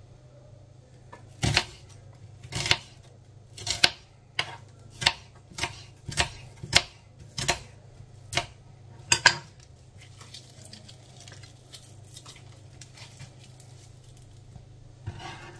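Kitchen knife slicing a spring onion finely on a cutting board: about a dozen sharp knocks of the blade reaching the board, one every half second to a second, then stopping.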